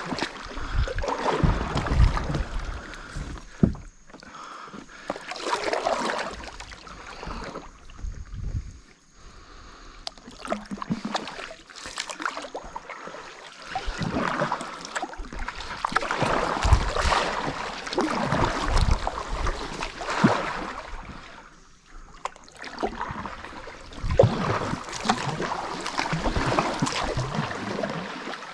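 Kayak on the water with irregular surges of water noise, typical of paddle strokes and water moving against the hull.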